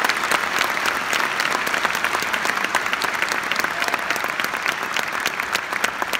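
Large theatre audience applauding: a dense wash of many hands clapping that thins a little near the end.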